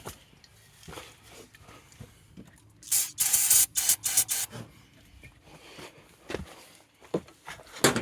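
Aerosol can spraying in a few quick bursts of hiss, as starting fluid is sprayed into the 305 Chevy's carburetor to help a hard-starting engine fire. Faint clicks and knocks come before and after the spraying.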